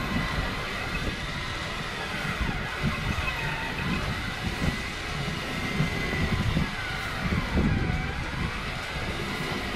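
Steady low rumble of a fishing boat's engine running, with a faint steady high whine over it.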